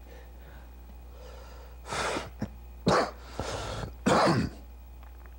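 A man coughing about four times in the second half, short harsh coughs right after drawing on a cigarette.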